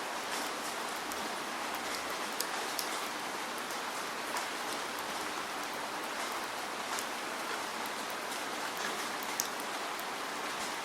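Steady rain falling, an even hiss with scattered sharp drop ticks on a surface.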